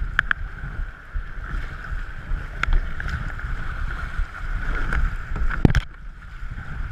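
Whitewater kayak running rapids: river water rushing and slapping against the hull and paddle blades dipping in, with wind buffeting the microphone. A few sharp knocks, and one loud splash near the end.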